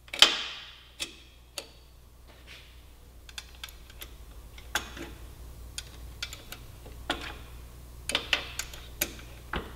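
Light, irregular metallic clicks and taps of a wrench on a motorcycle's rear axle chain-adjuster bolts as they are turned to set chain tension. There is a louder clink right at the start and a run of clicks near the end, over a faint low hum.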